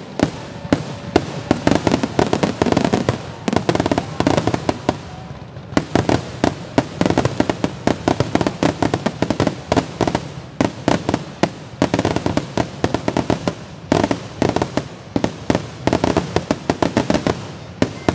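Fireworks finale barrage: a dense, continuous volley of bangs and crackles, many explosions a second, with louder booms standing out among them.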